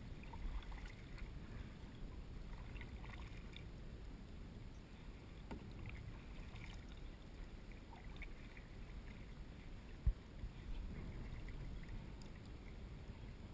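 Kayak on open water: a steady low rumble of wind and water, with light splashing and dripping and one sharp knock about ten seconds in.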